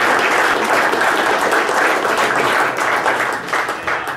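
Audience applauding: dense, steady clapping from many hands that thins a little near the end.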